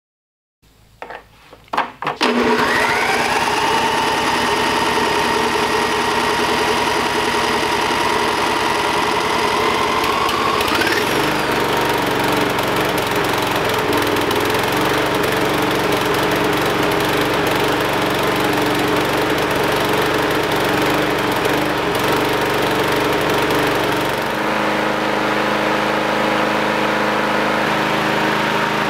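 Weed Eater push mower's small engine pull-started and running on straight starting fluid in the fuel tank: two short cranking pulls, then it catches about two seconds in and runs steadily. A high whine rises in pitch and dies out about ten seconds in.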